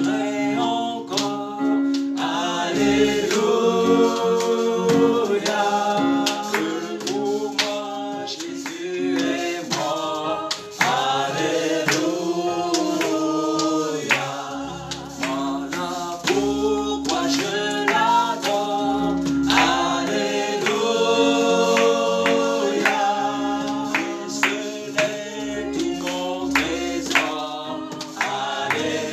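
A small mixed group of men and women singing a gospel praise song together, with hand claps on the beat and a steady held note underneath.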